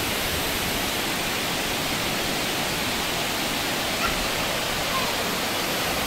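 Steady rush of water falling over the terraced cascades of a waterfall.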